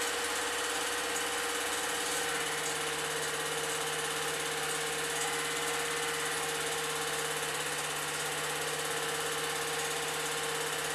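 Old 8mm film projector running, a steady mechanical whirr with a constant hum.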